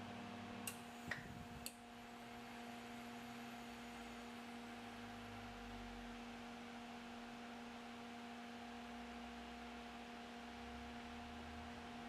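A steady electrical hum, with three light clicks about a second in.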